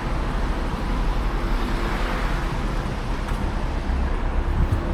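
Steady car and road noise: an even rush with a low rumble that gets a little stronger near the end.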